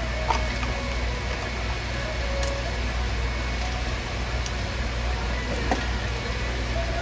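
A steady low machine hum, with a few faint clicks over it.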